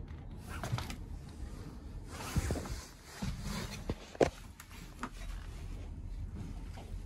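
Footsteps and handling noise inside an old wooden railway car: scattered knocks and rustles over a low rumble on the microphone, the sharpest knock about four seconds in.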